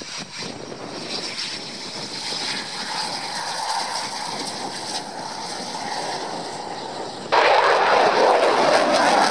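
Eurofighter Typhoon's twin turbofan engines running as the jet moves along the runway. About seven seconds in, the sound cuts abruptly to much louder jet noise from the Typhoon in flight, falling in pitch as it passes.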